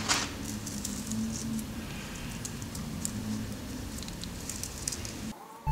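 Light ticking and rattling of jumper wires and small electronic components being picked through by hand on a tabletop, over a low steady hum; the sound cuts off suddenly near the end.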